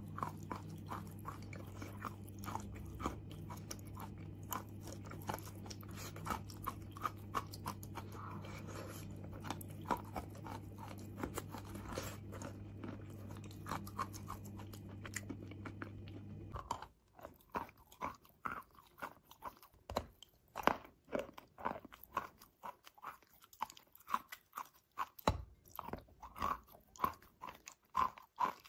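Chalk crunching and being chewed in the mouth, with many quick crunchy clicks. For the first part a steady low hum sits underneath, and it cuts off suddenly. After that the bites into a large chunk of chalk come louder and more spaced out.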